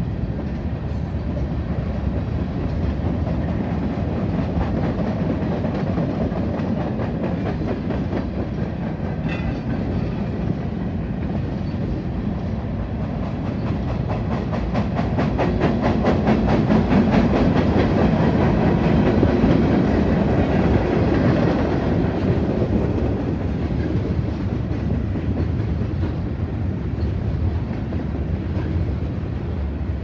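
Freight cars of a long manifest train rolling past on the rails: a steady rumble of steel wheels with rapid clicking over the rail joints. It grows louder for several seconds in the middle, then eases back.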